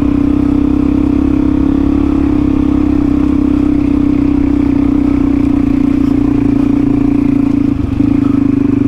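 Single-cylinder four-stroke trail bike engine pulling at steady revs while climbing a rocky track, with a brief break in the note near the end.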